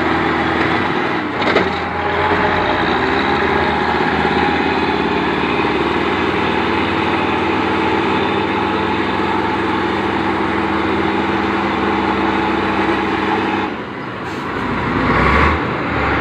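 Diesel engine of a Mercedes-Benz 3836 logging truck carrying a heavy load of logs, running steadily under load. About fourteen seconds in the engine note drops briefly, then picks up again with a changed pitch.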